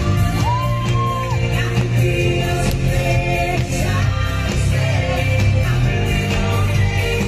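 Live pop music in an arena, heard from the audience: a singer over a heavy dance beat, with shouts from the crowd.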